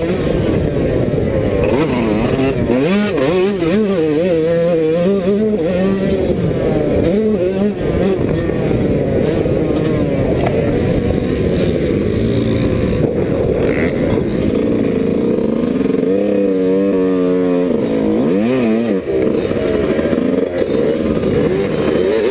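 Yamaha YZ125 two-stroke motocross engine ridden hard, its pitch rising and falling repeatedly with throttle changes, including a long rising rev near the end.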